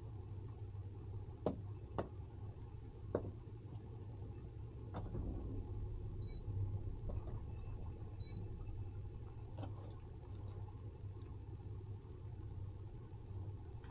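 Towboat engine running at low speed under tow, a steady low drone. There are three sharp knocks in the first few seconds and two short, high beeps in the middle.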